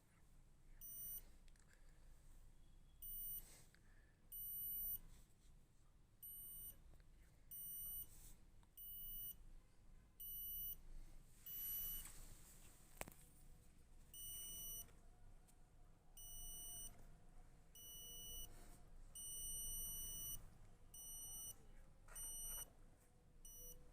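Home security alarm beeping: a high-pitched electronic beep repeating about once every second or so, some beeps short and some held longer.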